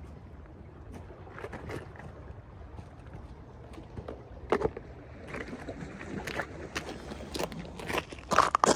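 Low steady wind rumble, with scattered rustles, clicks and knocks of fishing tackle being handled at a seat box. The knocks come more often in the second half, and a cluster of sharp, louder knocks comes near the end.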